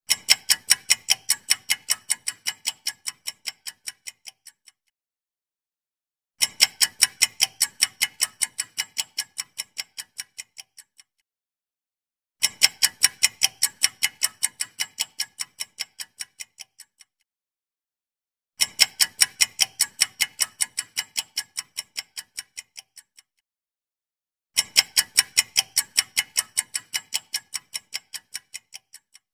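Countdown-timer clock-ticking sound effect: runs of quick, even ticks, about four a second, each run fading away over about four and a half seconds and then stopping for a second and a half before the next; five runs in all.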